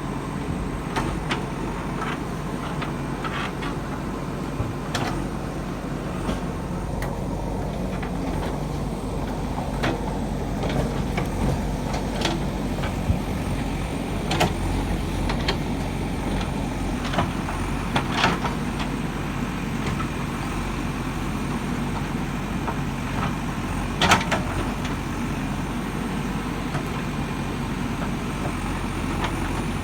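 JCB 3DX Super backhoe loader's diesel engine running steadily while working, with scattered sharp knocks, one standing out well above the rest.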